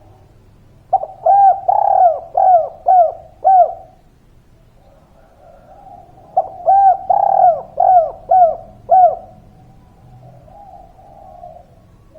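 Spotted dove (derkuku / tekukur) cooing: two phrases of about six quick rounded coos each, a few seconds apart, with fainter coos near the end.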